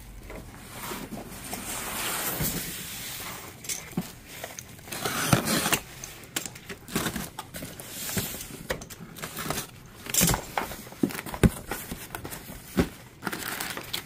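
Cardboard shipping carton being handled and cut open with a utility knife: scattered knocks and bumps against the table, with cardboard scraping and flaps rustling.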